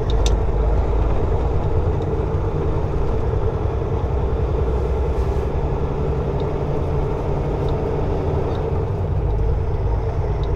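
Diesel engine idling, a steady low hum heard from inside a semi truck's cab.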